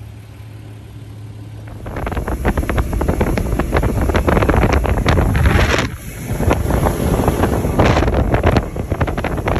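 A bass boat under way with its outboard motor running, nearly buried under heavy wind buffeting the microphone. A steady low hum for about the first two seconds gives way to loud, gusting wind noise over a low rumble.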